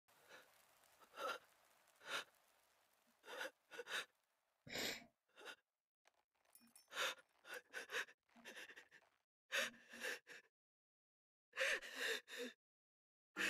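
A man crying: a dozen or so short sniffs and gasping, shaky breaths, with no words.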